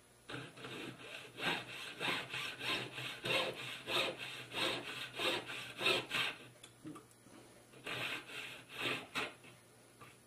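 Jeweler's saw with a fine blade cutting through the gold shank of a ring, in quick rasping back-and-forth strokes about two a second; the strokes pause about six and a half seconds in and resume briefly near the end. It is cutting out a thin sliver of the shank to make the ring smaller.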